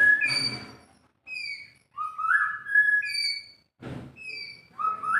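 White-rumped shama singing, repeating the same short phrase: high chirped notes followed by a rising whistle, about every two and a half seconds. A short noisy rustle or bump sounds just before the fourth second.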